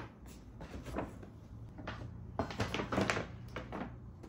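Light knocks and rustling of small objects being handled and set down on a desk, a few about a second in and a denser cluster near the middle to late part.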